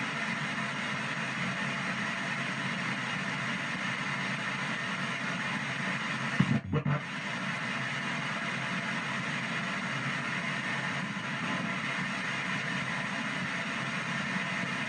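PSB7 ghost box radio sweeping through stations in reverse, giving a steady hiss of static. About six and a half seconds in there is one brief louder blip.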